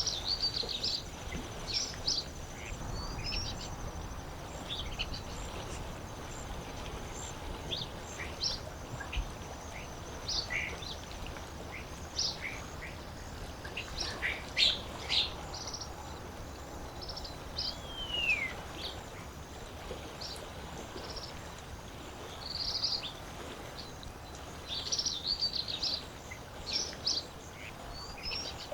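Many small birds chirping and calling over a steady low wash of lake water. The short, sharp chirps come throughout, with one downward-sliding whistle about 18 seconds in and thick clusters of chirping near the end.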